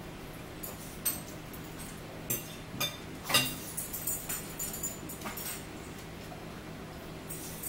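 Close-up eating sounds: chewing and lip smacks heard as scattered short, wet clicks, the loudest about three seconds in, over a low steady hum.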